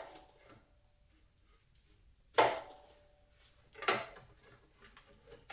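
Four sharp metal clanks about a second and a half apart, each ringing briefly: a tool knocking against a stuck engine water neck as it is worked loose, its old O-rings having seized it in place.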